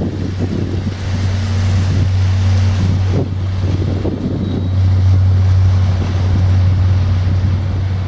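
Deep, steady drone from the 1950 hp motor tanker Ellen passing close below, swelling twice, with wind buffeting the microphone.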